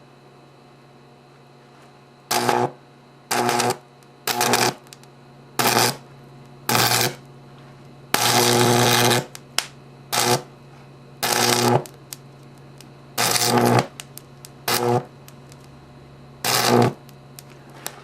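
High-voltage AC from two unballasted microwave oven transformers arcing and burning across a remote control's circuit board. It comes as about eleven loud buzzing bursts, each under a second and the longest about a second near the middle, over a faint steady hum.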